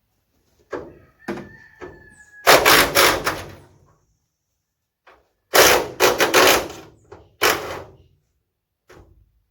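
Hand work on a car's engine bay with tools: a few sharp knocks and a brief squeak, then three separate loud bursts of clattering. The first runs about a second from two and a half seconds in, the second about a second from five and a half seconds in, and a shorter one follows at about seven and a half seconds.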